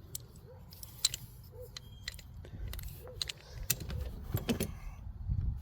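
Metal clinks and knocks of steel pipe wrenches being handled and set down, a scatter of sharp clicks that gets busier about halfway through.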